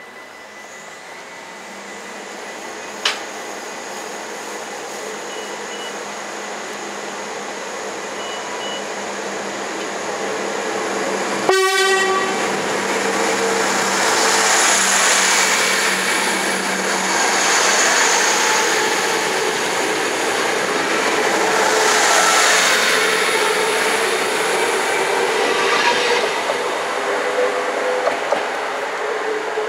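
NS DM '90 diesel railcar approaching and growing steadily louder, with one short horn blast about twelve seconds in. The running noise then swells as the train passes close by near the end.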